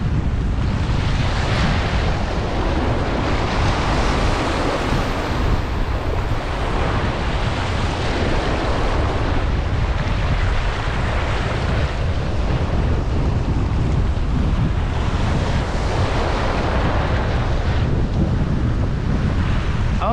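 Ocean surf washing in over a rocky reef shoreline, swelling and easing several times, with wind buffeting the microphone as a steady low rumble.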